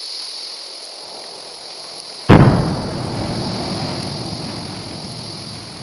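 Volcanic fissure eruption breaking out: a steady high hiss, then about two seconds in a sudden loud boom that fades slowly over the next few seconds.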